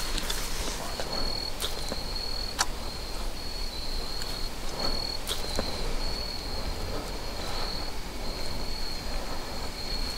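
Crickets chirping steadily in a high, pulsing trill, with a few sharp clicks.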